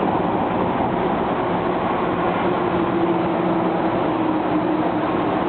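MTR metro train running at speed: a steady rumble of wheels and running gear with a faint motor hum that rises slightly in pitch midway.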